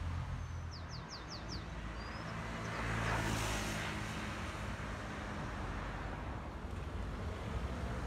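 Street traffic: a low steady engine hum with a vehicle passing by, swelling about three seconds in. Near the start a bird gives five quick, short high chirps.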